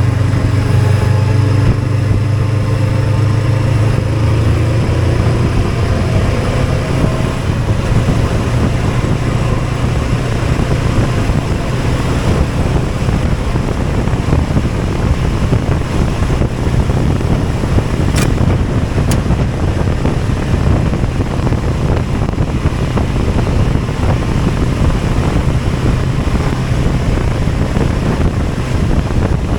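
A vehicle engine pulling away, its pitch rising over the first few seconds, then settling into a steady drone of engine, wind and road noise while cruising.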